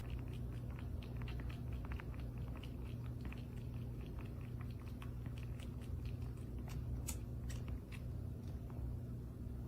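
Chewing: irregular small crunches and clicks, several a second, over a steady low hum.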